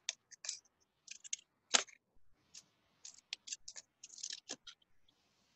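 Small hand scissors snipping folded paper: a run of short, irregular snips, the loudest a little under two seconds in.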